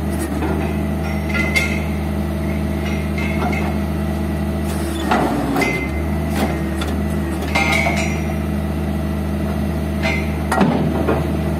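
Borewell drilling rig's engine running steadily, with several sharp metallic clanks from the drill rod and tools being worked at the rotary head. The engine note dips briefly about five seconds in.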